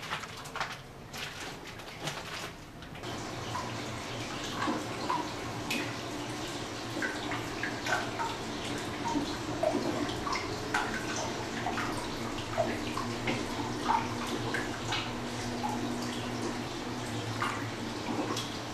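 Hot-spring water running from a spout into a wooden bathtub: a steady splashing trickle with scattered drips, starting about three seconds in after a few light knocks.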